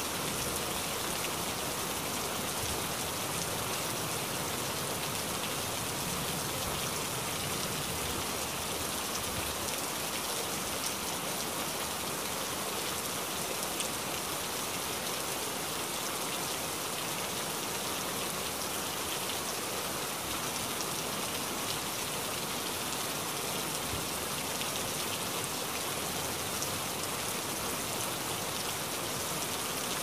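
Steady rain falling: an even hiss full of small pattering drops.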